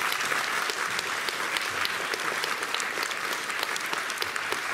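Audience applauding steadily: many hands clapping at once at the end of a talk.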